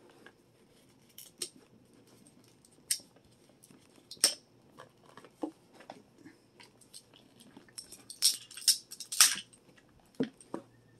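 Hard plastic parts of a toy dinosaur clicking and clattering as its snap-on gold armour and chain pieces are handled and picked at with the fingers. Scattered sharp clicks, with a quicker run of louder ones about eight to nine seconds in.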